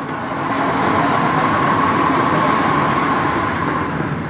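Metro train running noise heard from the driving cab of an NS16 train, as another metro train passes on the adjacent track. A steady whine comes in about a second in and fades near the end.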